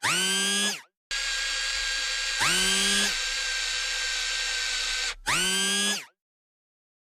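Small electric motor whirring, like a power drill: three short spin-ups that rise quickly in pitch and level off, the middle one over a steady whir lasting about four seconds. Each sound cuts off abruptly into dead silence.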